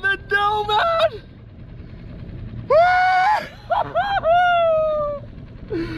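A man whooping and yelling without words in excitement: a shout that stops about a second in, then a long high whoop near three seconds, followed by a few falling cries. Steady wind-and-water noise underneath.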